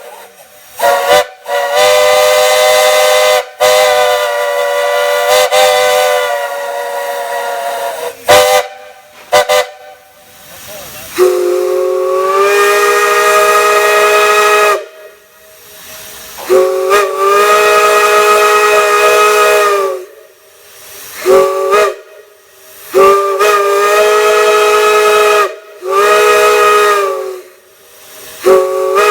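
Chime whistles sounding chords of several notes. A higher-pitched whistle is held for most of the first ten seconds with a few brief breaks. About eleven seconds in, a lower-pitched whistle blows in long blasts, then two short toots, then more long blasts, each cut off with a hiss.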